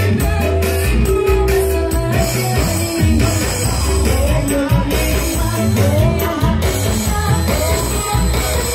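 Pop music with a singer, played loud over a large outdoor stage PA, with heavy bass and a steady drum beat.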